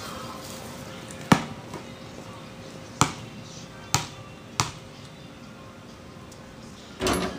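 Basketball bouncing on an outdoor court: four sharp bounces spread over the first few seconds. Near the end comes a longer, louder clatter as the backwards shot reaches the backboard and rim.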